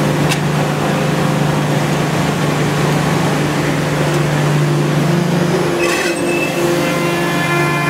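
A 5-axis CNC wood router running: a steady low hum under a broad hiss, with a few sharp clicks and a brief rise in noise about six seconds in.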